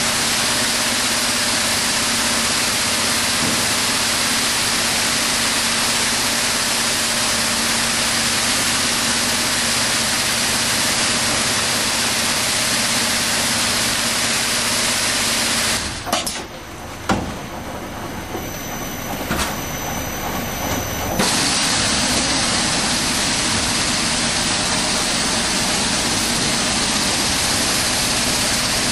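Vertical packaging machine running, a steady hissing machine noise. About sixteen seconds in, it drops away for about five seconds and a few clicks are heard, then the steady noise comes back.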